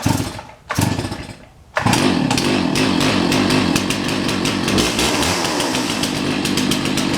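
Chainsaw being started: two short bursts as it is pulled over, then it catches about two seconds in and runs steadily.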